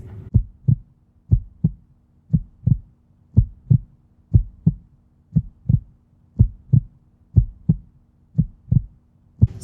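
Heartbeat: paired lub-dub heart sounds, the first and second heart sounds, made as the tricuspid and mitral valves and then the aortic and pulmonic valves close. The rhythm is steady at about one beat a second.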